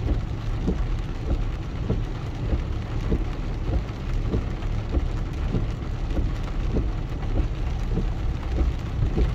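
Rain falling, with separate drops hitting close to the microphone a few times a second, over a steady low rumble.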